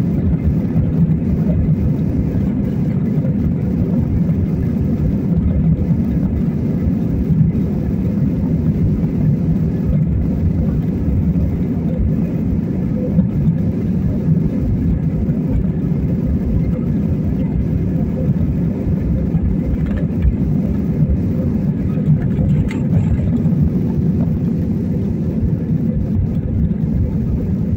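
Jet airliner taking off, heard from inside the cabin: the engines at takeoff power and the wheels on the runway make a steady, loud, deep rush of noise.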